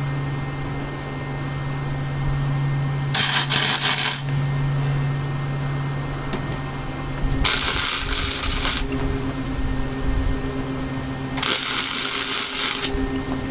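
MIG welder tack-welding steel rod loops onto a rack: three short crackling arc bursts of about a second each, spaced about four seconds apart, over a steady low hum.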